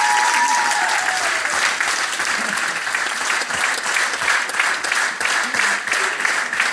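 Theatre audience and cast applauding, with a dense, steady patter of many hands clapping.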